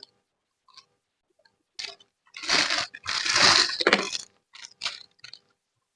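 A person biting and chewing crunchy food: several loud crunches between about two and four seconds in, then a few short, softer chewing clicks.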